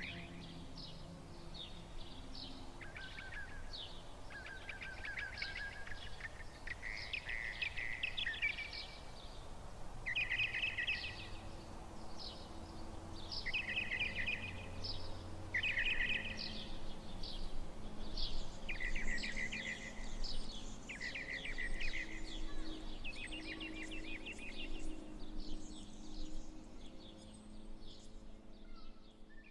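Birds singing outdoors: repeated bursts of high chirps and trills every second or two, over a faint low steady hum.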